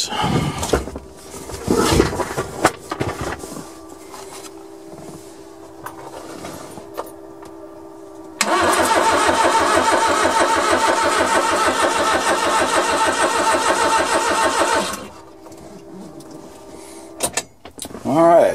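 Suzuki Carry mini truck's engine cranked over by the starter for about six seconds, starting about eight seconds in, and stopping abruptly without firing. It turns over freely, with no clanking, but cannot start because it has no spark: the distributor is not yet fitted.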